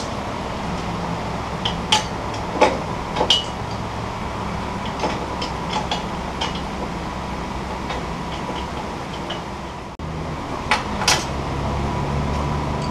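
Scattered metallic clinks and taps of steel parts being handled and fitted on a sawmill head's lift mechanism, over a steady low hum.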